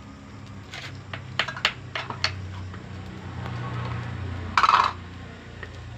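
Wooden spatula tapping and scraping fried rice around a metal wok: a quick run of sharp clicks in the first couple of seconds, then a short, louder scrape a little over four and a half seconds in.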